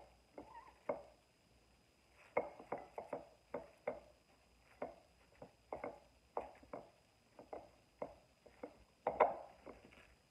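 Raw shredded cabbage and carrots rustling as they are tossed by hand in a glass mixing bowl, a short crisp rustle every half second or so, with a pause about a second in.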